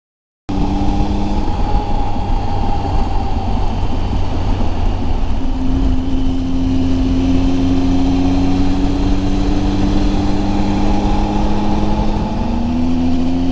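Triumph Tiger 800XC's three-cylinder engine running under way, cutting in abruptly about half a second in, its note steady and rising slowly in pitch, over a steady low rumble.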